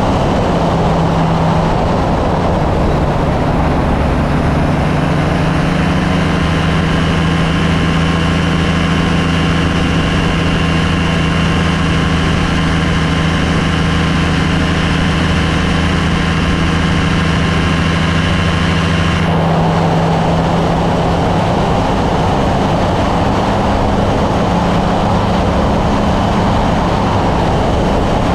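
Kolb Firefly ultralight's engine and propeller running steadily in flight. About two-thirds of the way through, the higher engine tones drop away suddenly, leaving a lower drone.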